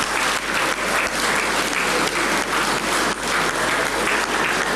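An audience applauding: dense, steady clapping from many hands.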